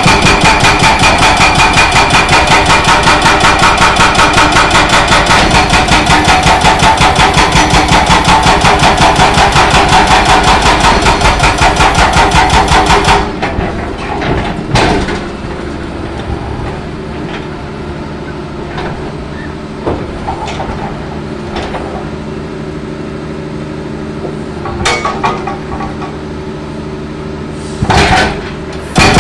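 Excavator-mounted hydraulic breaker hammering its chisel into concrete with rapid, evenly spaced blows for about the first 13 seconds, then stopping. After that the excavator's engine runs steadily, with a few separate knocks and a short loud burst near the end.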